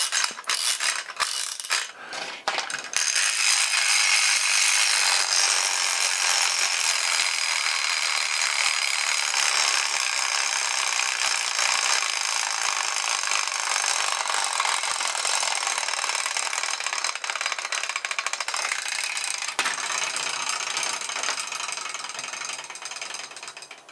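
3D-printed plastic clockwork motor: a few ratchet clicks as it is wound with its key, then the spring runs the gear train down in one continuous whirring rattle for about twenty seconds, slowly getting quieter until it stops just before the end.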